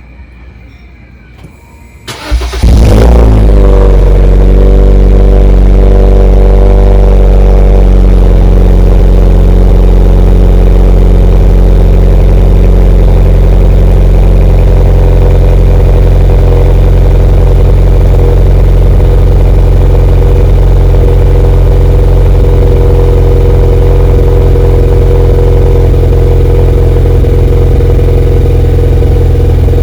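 Honda Brio engine starting about two seconds in through a Kakimoto Regu 92dB-Z aftermarket muffler, with a short flare as it catches, then idling steadily and settling after a few seconds.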